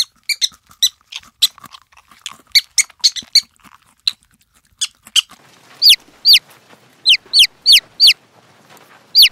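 Domestic chicks peeping: short high squeaks and chirps at first, then from about six seconds in a run of loud peeps, each a quick falling note, about two a second.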